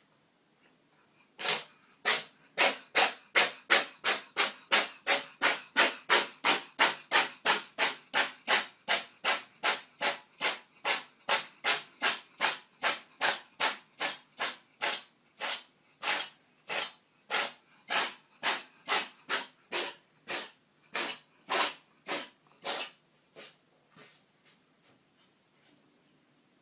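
A cat sneezing over and over in a long fit: about forty short, sharp, breathy sneezes. They come about three a second at first, then slow and thin out, and stop a couple of seconds before the end.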